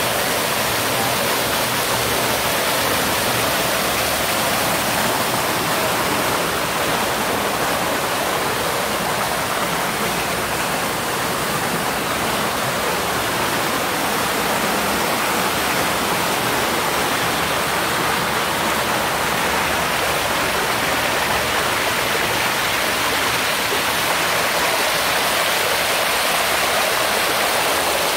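Small waterfalls pouring into a hot spring pool: a steady, even rush of splashing water.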